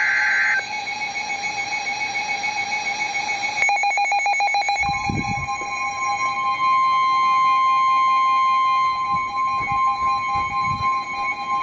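Emergency Alert System alert tones for a National Weather Service warning: a steady alarm tone, opened by a short higher-pitched burst. A stretch of rapid beeping comes around four seconds in, and a second, higher steady tone joins about five seconds in.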